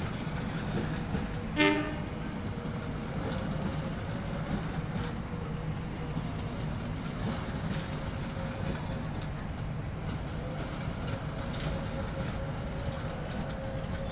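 Passenger train coaches running past, a steady rumble with the wheels clacking over rail joints. A single short horn toot sounds about a second and a half in.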